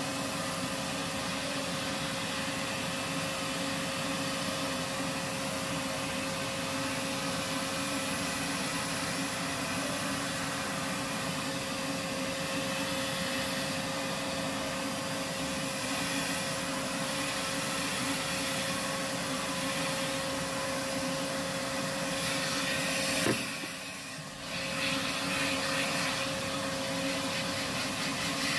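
Barbershop hair-suction vacuum drawing air through a ceiling-hung hose and brush nozzle as it is run over the neck and head to clear off cut hair: a steady rushing suction noise with a steady hum. About 23 seconds in there is a click, and the sound drops briefly for about a second.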